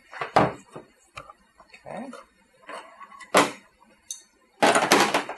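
Sharp metallic clicks and clanks from a squeeze-type dent puller being worked by hand on an aluminum body panel, its levers pulling on nails welded to the sheet. Separate knocks come about half a second in and about three and a half seconds in, with a loud burst of several clanks near the end.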